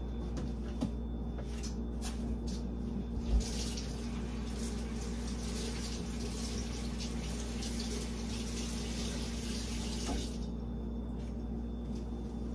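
Kitchen faucet turned on and running for about seven seconds, then shut off, over a steady low hum. A thump comes just before the water starts.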